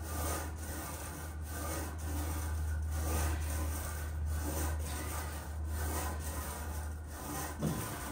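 Smith machine bar sliding up and down its guide rods as it is pressed with the feet, a repeated rubbing sound, over a steady low hum.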